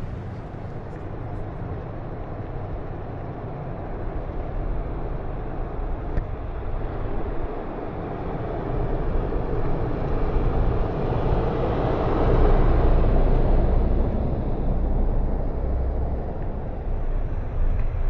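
Street traffic: a car drives past, its tyre and engine noise swelling to its loudest about two-thirds of the way through and then fading, over a steady low rumble.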